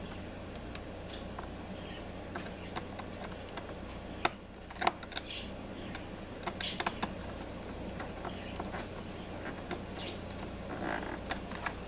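Hands working stiff wires into a plastic screw-terminal block on a relay module, close to the microphone: scattered small clicks and short rustles at irregular times over a steady low hum.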